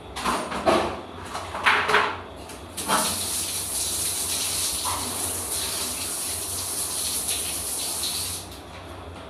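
Handheld bidet sprayer spraying a steady hissing jet of water onto the floor from about three seconds in, cutting off near the end. Before that come three short loud sounds.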